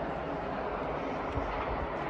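JR E653 series electric train running by on the line, a steady rushing rumble of wheels on rail.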